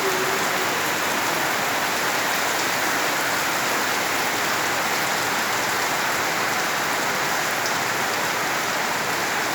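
Heavy downpour of rain: a steady, dense hiss of falling rain that holds unchanged throughout.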